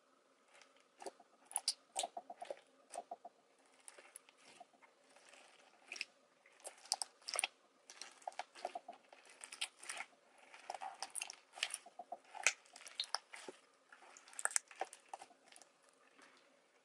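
Bubbly slime being poked, pressed and squeezed by fingers, giving many quick crackling pops and clicks in irregular clusters as its air bubbles are squashed.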